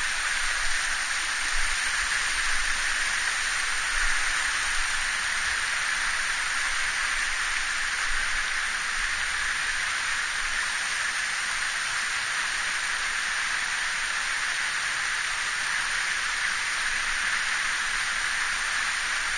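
Mountain stream running high after rain, a steady rush of water with no let-up, with a few soft low thumps in the first few seconds.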